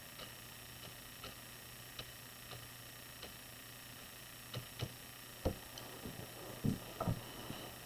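Light scattered taps, then a run of louder dull knocks in the second half, from a watercolour brush and painting gear being worked on the table. A low steady hum runs underneath.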